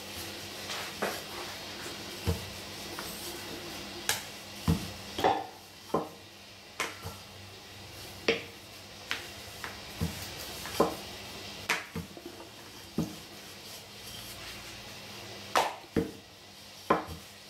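Rolling pin rolling out tortilla dough on a floured granite countertop, the pin knocking sharply and irregularly against the stone, about once a second.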